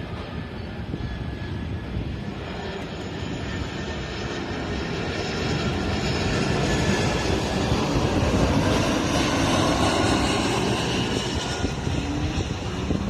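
Jet airliner's engines roaring as it passes. The roar with its faint high whine builds to a peak about two-thirds of the way through, then begins to ease.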